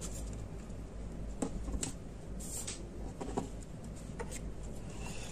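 Faint handling noise: a few light, scattered taps and rustles as crepe paper and a crocheted lily on its stick stem are moved and picked up off a tabletop, over a steady low hum.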